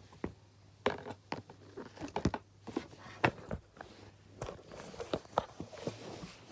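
Irregular clicks, taps and rustling at close range: handling noise of the phone being moved about, with clothing brushing against it.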